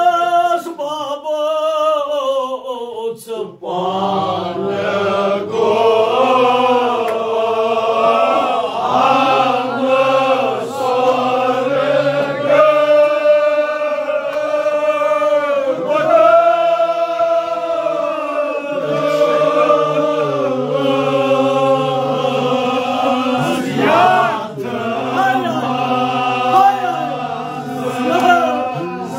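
Men's voices chanting a mourning lament (noha) in unison with one leading voice. A single voice for the first three seconds or so, then the whole group joins in, sustained and sliding in pitch.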